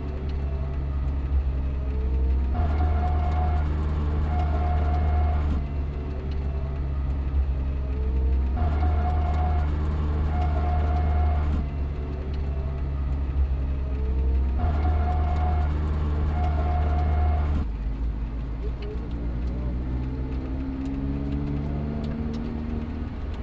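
Mazda MX-5 Miata (ND) drivetrain heard from the trunk while driving: a low drone with differential gear whine and grittiness. The drone swells louder three times, for about three seconds each, and eases between swells. The whine comes through more because a stiffer JBR aftermarket differential mount passes more gear noise into the body.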